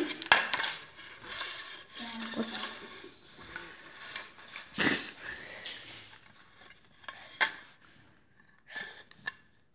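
Plastic Lego pieces being handled and knocked on a hard floor: scattered clicks and clatters with rustling between them.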